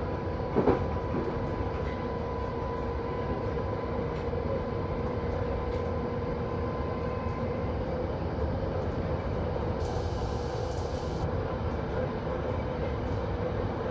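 London Underground 1972 Stock train running steadily: a continuous rumble with a steady whining tone, a single knock about half a second in, and a brief high hiss about ten seconds in.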